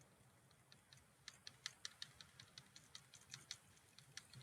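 Faint, quick clicks of a computer mouse and keyboard being worked, several a second, starting about half a second in.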